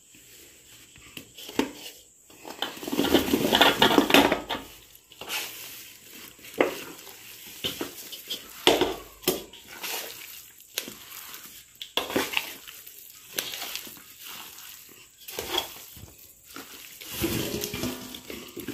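Large chunks of cut raw mango being tipped into a pot and mixed for pickle, knocking and scraping against the vessel in irregular bursts, heaviest about three to four seconds in.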